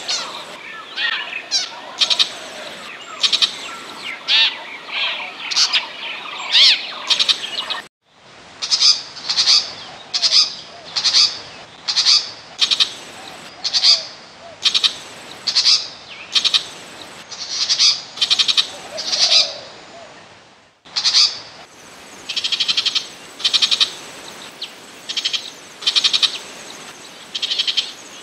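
Burmese shrike calling: short, harsh, rattling notes repeated about once every three-quarters of a second, played as a looped lure-call recording that cuts off abruptly and restarts twice.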